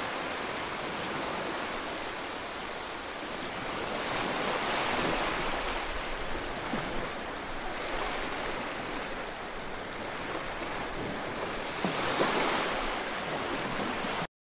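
Small waves washing up on a sandy beach: a steady rush that swells and fades as each wave breaks and runs up the sand, cutting off suddenly near the end.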